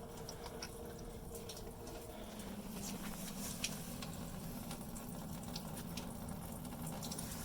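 Engine coolant draining from the radiator's drain plug and splashing into a drain pan, a steady trickle with scattered drips; a low steady hum comes in about two seconds in. The radiator cap is off so it drains faster.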